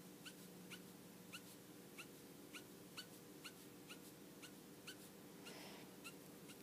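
Copic marker nib squeaking faintly on paper in quick flicking strokes, a short high chirp about four times a second.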